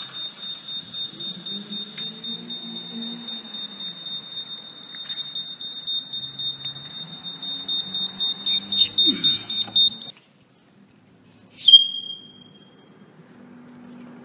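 High-pitched electronic beep from a prototype tire valve-stem finder's buzzer: one steady tone with a fast flutter for about ten seconds that cuts off suddenly, then a single short, loud chirp about two seconds later. The buzzer sounds when the probe touches the tire's valve stem, signalling that the stem lines up with the wheel fairing's access hole.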